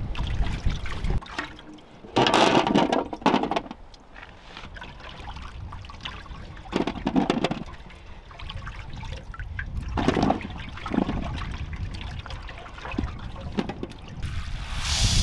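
Water sloshing and splashing in a large metal basin as vegetables are washed by hand, in several separate splashes about two, seven and ten seconds in.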